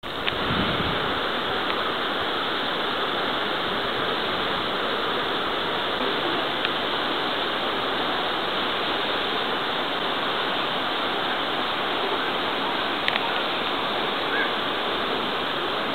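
Steady rushing noise that holds an even level throughout, with a few faint ticks.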